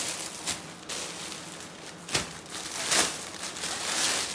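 Plastic garment bags and clothing rustling and crinkling as they are rummaged through, in several bursts, the loudest about three seconds in.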